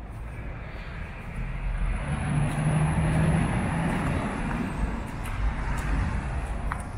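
A vehicle engine rumbling with a steady low hum. It swells about two seconds in, holds for a couple of seconds, then eases off a little.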